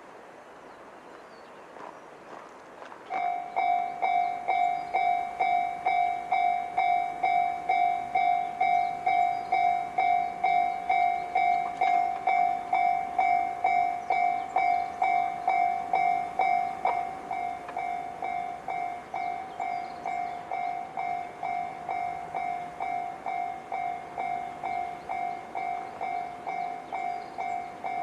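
Japanese level-crossing warning bell with the JR standard electronic tone. It starts about three seconds in, a clanging tone repeated about twice a second, and becomes quieter around seventeen seconds in.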